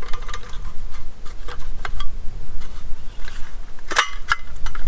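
Aluminium slats of a GSI Outdoors Micro Table's folding tabletop clicking and clattering as a stiffening stick is fed through their holes, catching on them as it goes. There are irregular sharp clicks throughout, with the loudest clacks about four seconds in.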